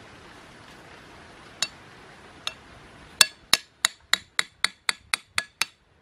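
Machete striking a trap stake to drive it into the ground: two separate taps, then a quick run of about ten, around four a second, each with a short metallic clink.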